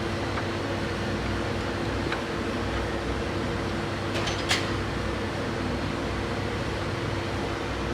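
Steady mechanical hum, with a light clink about two seconds in and a sharper one about four and a half seconds in.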